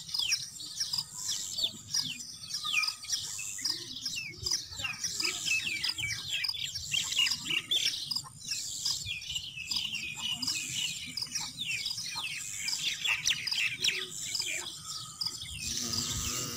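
Small birds chirping busily: a dense, continuous run of quick, high, downward-sweeping chirps from several birds, over a thin steady high tone.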